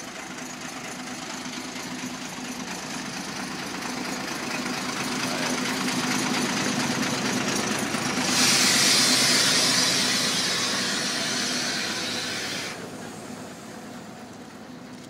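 Narrow-gauge Lxd2 diesel locomotive idling, its engine growing louder as it is neared. About eight seconds in a loud hiss starts, and it cuts off suddenly some four seconds later.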